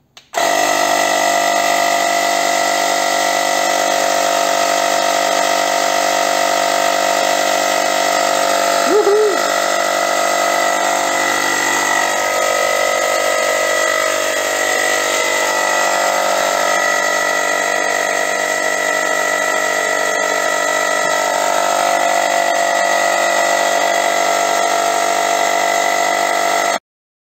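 Small electric air pump running steadily with a loud, even motor hum, pushing air through a home-made smoke machine. It switches on about a third of a second in and cuts off suddenly near the end.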